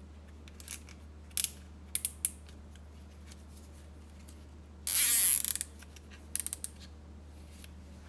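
A plastic zip tie being pulled tight, with a quick ratcheting zip about five seconds in, among a few small clicks of the tie being handled and threaded.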